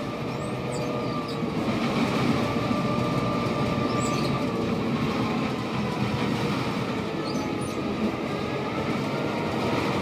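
A freight train rolling along at steady speed: a continuous rumble and rush from the wheels and cars, with water sloshing in the flooded open-top gondola car just behind the locomotive. Faint wheel squeal comes through at times.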